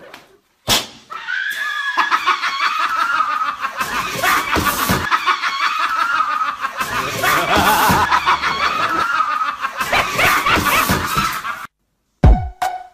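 A person laughing hard in one long, high-pitched, unbroken fit that cuts off suddenly near the end. A short burst of beat-driven music starts just after.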